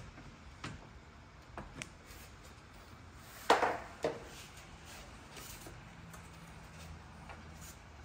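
A few light knocks and a short clatter of hard objects being handled, the loudest about three and a half seconds in.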